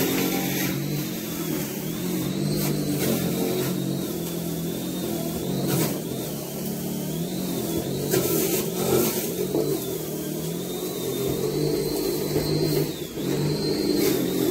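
Garland Roll & Comb 302W electric lawn scarifier running: a steady motor hum with a thin high whine that wavers slightly, and a few brief clicks.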